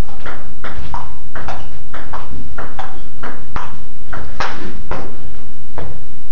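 Table tennis ball in a rally, clicking off the paddles and bouncing on the table a few times a second. The exchange stops about six seconds in.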